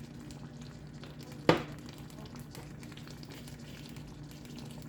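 Clay pot of chicken rice sizzling on the heat as soy sauce cooks down against the hot pot, a steady hiss. A single sharp clack about one and a half seconds in.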